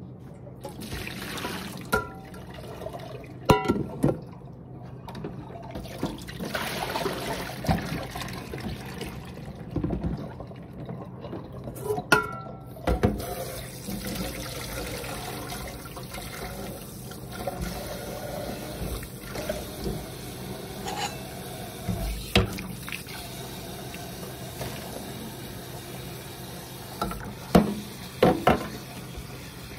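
Water running or pouring, with scattered sharp knocks and clatters.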